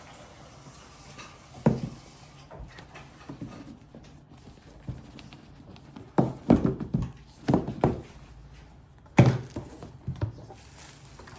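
A MacBook Air box and its packaging being handled and opened by hand: scattered knocks and taps, a few in quick succession, with the loudest thump about nine seconds in.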